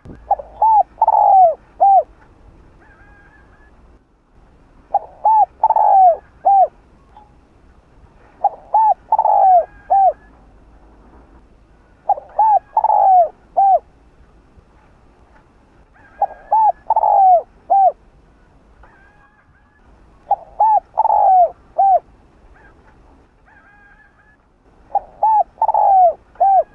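Spotted dove cooing: seven repeated phrases, one about every four seconds, each a quick run of about four coos, with the middle note longest and loudest.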